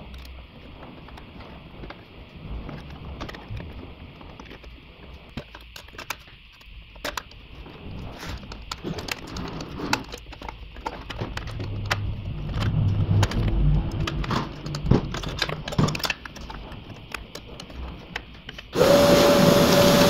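Tools and metal parts clicking and knocking while hands work on the car's underside. Near the end comes a loud rushing noise with a steady whistle, lasting about a second and a half.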